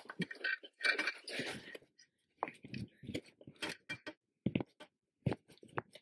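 Fingers working a stubborn white plastic wiring connector loose from the amplifier module under a car seat: rustling and scraping of plastic and wires in the first two seconds, then scattered small sharp plastic clicks as the latch tab is pushed and the plug resists.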